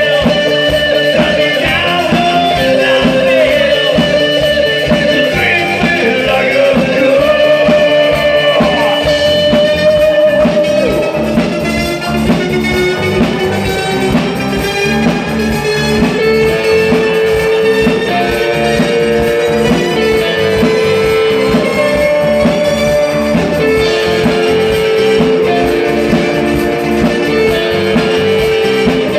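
Live new wave band playing with electric guitars, bass guitar, keyboards and drums. Held melody notes ride over a steady beat.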